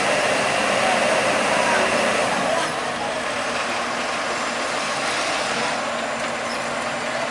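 Heavy-equipment diesel engines, a Kobelco crawler excavator's and a Sakai tandem roller's, running steadily. The sound eases down a step about two and a half seconds in.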